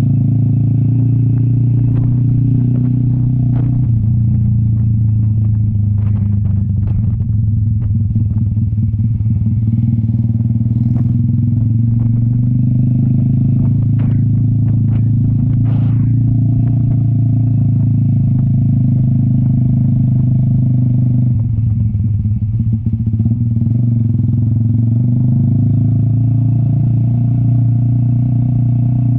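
Cafe 400 motorcycle with an SC Project aftermarket exhaust running steadily under load on an uphill climb. The engine note holds steady, dips briefly about two-thirds of the way through and then comes back, with a few short clicks along the way.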